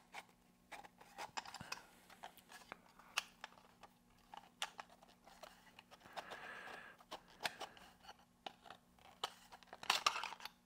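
Scattered light clicks and taps of a bent aluminum rod linkage being handled and fitted against 3D-printed plastic AC duct diverter doors, with a soft rustle about six seconds in. A faint steady hum runs underneath.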